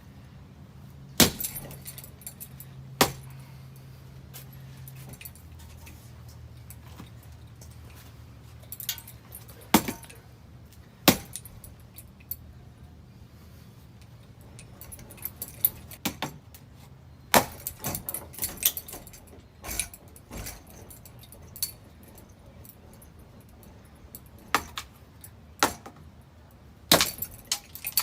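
Damaged ceiling fan running with a steady low motor hum while its loose, warped parts clank and rattle in irregular sharp knocks. The hum drops in pitch about five seconds in.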